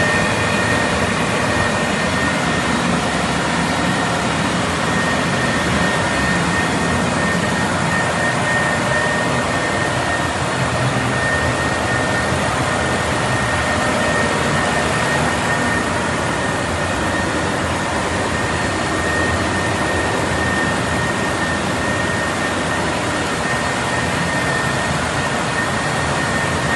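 Caterpillar G3512 V12 natural gas generator set running steadily on a test run: a loud, even engine noise with a steady high whine over it.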